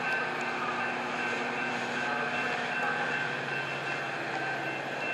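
Metra commuter train's bilevel cars rolling slowly alongside the platform: a steady rumble with a constant high-pitched whine over it.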